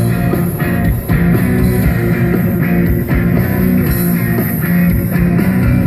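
Punk rock band playing live through a big open-air festival sound system: electric guitars and a drum kit, loud and steady.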